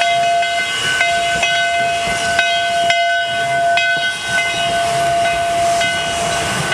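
Steam whistle of Virginia & Truckee No. 29, a 2-8-0 steam locomotive, sounding one long blast, its upper notes fading in and out, over a hiss of steam.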